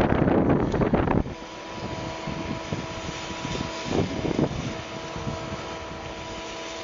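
Diesel engines of a truck-mounted concrete pump and a concrete mixer truck running with a steady hum while concrete is pumped into foundation trenches. A loud rush of noise fills about the first second.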